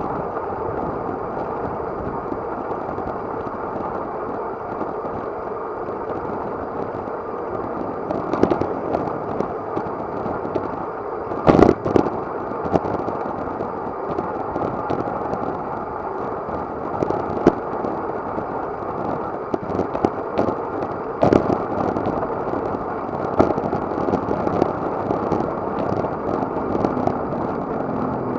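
Steady wind noise rushing over a bicycle-mounted action camera while riding at speed, with a few sharp knocks and rattles from the bike hitting bumps, the loudest about twelve seconds in.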